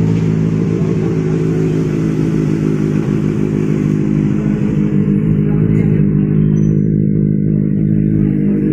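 Benelli motorcycle engine with an aftermarket exhaust idling steadily at an even pitch, settled just after a blip of the throttle.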